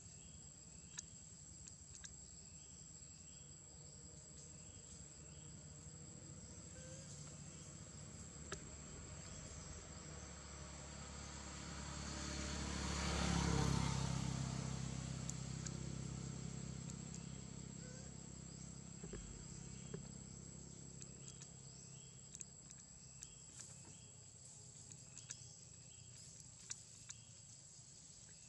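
Forest ambience: insects keep up a steady high-pitched drone, with a few faint clicks. A broad rumbling rush swells up and fades away again, loudest about halfway through.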